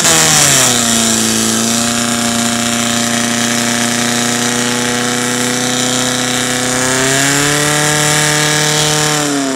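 Portable fire pump engine running hard, its pitch dropping in the first second as it takes the load of pumping water into the hoses, then holding steady. About seven seconds in the revs rise and hold at the higher pitch.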